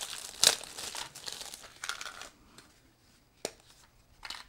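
Plastic bag crinkling as a remote control is unwrapped from it, with a sharp click about half a second in. After about two seconds it goes quieter, with light handling and a couple of short clicks near the end.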